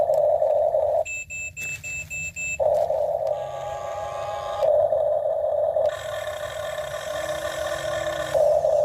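Electric motors of a Huina RC toy excavator running with a steady whine that cuts in and out as its functions start and stop, with a run of five short high beeps about a second in.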